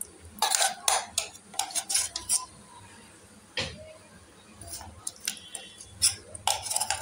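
Metal spoon clinking and scraping against an aluminium cooking pot while spreading meat and gravy over layered biryani rice. The clinks come in quick clusters over the first two and a half seconds, once alone near the middle, and again in a cluster near the end.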